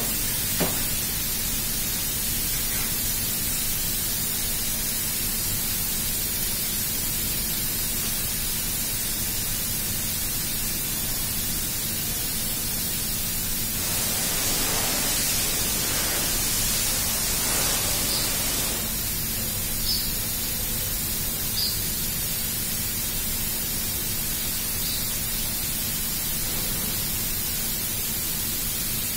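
Steady hiss with a faint low hum throughout, and a few faint clicks.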